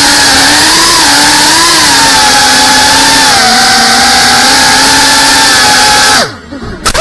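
GEPRC FPV quadcopter's motors and propellers whining loudly, the pitch wavering a little with throttle. The whine cuts out abruptly about six seconds in.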